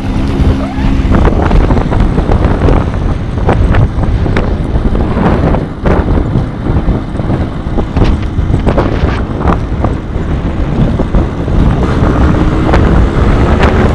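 Yamaha RX100's two-stroke single-cylinder engine running while the motorcycle is ridden, under heavy wind buffeting on the microphone; the engine note climbs near the end.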